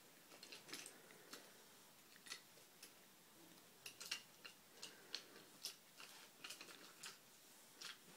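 A dozen or so faint, irregular clicks and clacks of small toy train cars being pushed together and lined up on a wooden train track.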